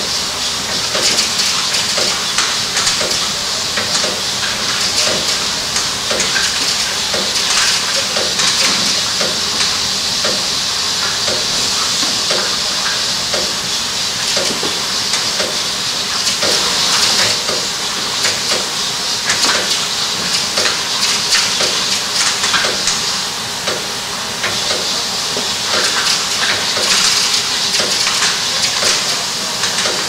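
Intermittent lid plugging machine running: a steady hiss with regular short clacks a little over once a second.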